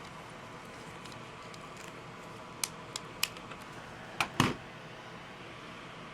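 Plastic Lego pieces clicking as they are handled and pressed together: a few light clicks in the middle, then two sharper snaps just past four seconds, the second the loudest.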